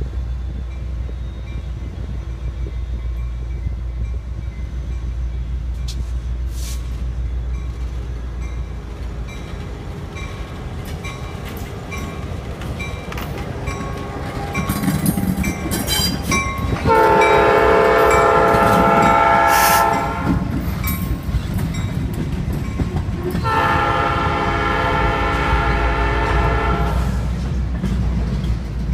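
Norfolk Southern freight led by an EMD GP38-2 and GP59 passing, with a steady low drone of diesel engines and rolling cars. About halfway through the lead locomotive sounds its air horn in a long blast of about three seconds, then a second long blast a few seconds later.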